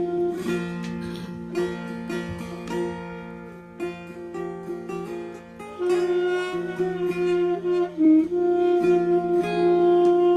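A slow duet of a wooden end-blown wind instrument playing long held notes over a plucked long-necked lute. The held notes thin out for a few seconds in the middle and come back strongly about six seconds in, with the lute plucking throughout.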